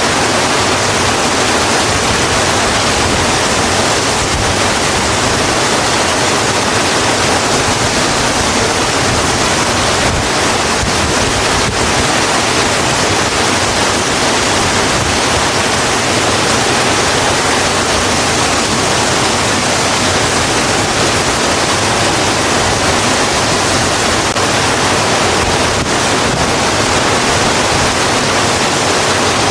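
Steady, heavy rain falling, an even unbroken hiss with no distinct drops or events.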